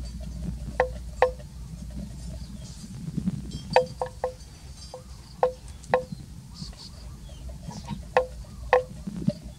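A bell clonking irregularly, about nine short strikes, each with a brief ringing tone.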